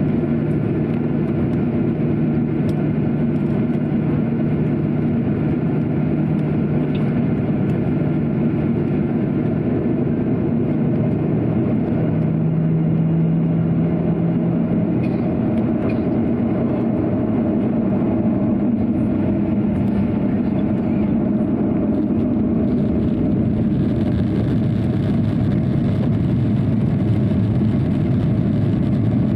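Cabin noise of a Boeing 737-800 taxiing: its CFM56-7B engines running at taxi power, heard through the fuselage as a steady hum with a low drone that rises slightly in pitch about halfway through.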